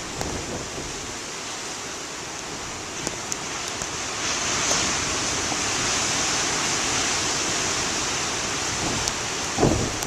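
Ocean surf from a nor'easter swell breaking and washing ashore: a steady rush of water that swells louder about four seconds in and eases toward the end.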